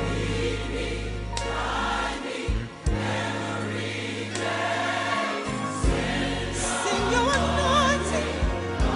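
Gospel choir singing over sustained low accompaniment notes that change every couple of seconds; a voice with wide vibrato comes in about seven seconds in.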